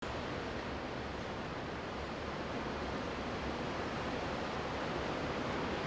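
Steady rushing noise with no distinct tones or hits, slowly growing louder.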